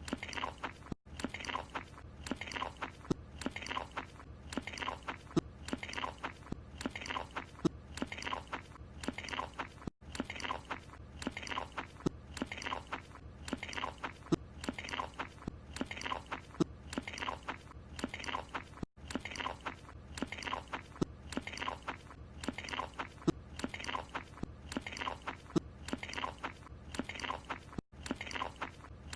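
Cartoon character chewing and biting into a croissant, a steady run of crunchy, open-mouthed munching. It is a looped sound clip that restarts about every nine seconds, with a brief gap at each seam.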